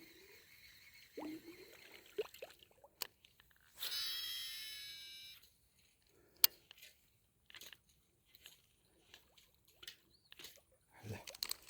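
Fishing line whizzing off a reel during a cast, for about a second and a half some four seconds in, among a few faint clicks and knocks.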